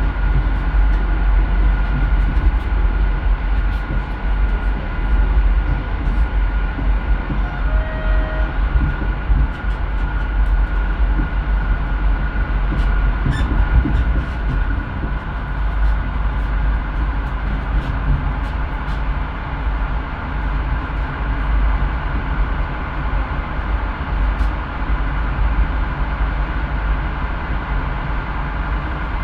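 Train crossing a railway bridge: a steady, loud low rumble with a faint high whine and scattered short clicks.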